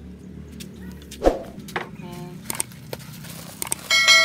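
A sharp knock about a second in and a few lighter clicks, then near the end a click and a bright bell ding from a subscribe-button sound effect, the ding ringing on.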